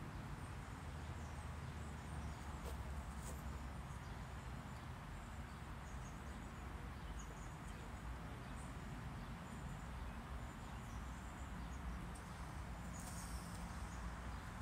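Quiet outdoor ambience: a steady low rumble with faint, scattered high chirps throughout.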